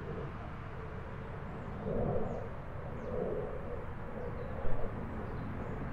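A pigeon cooing in a few low hoots, the clearest about two and three seconds in, over a steady low rumble; a short knock near the end.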